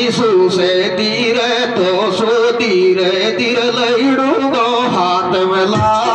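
Live Meena geet folk music played loud through a PA system: a held, wavering, ornamented melody line with male singing.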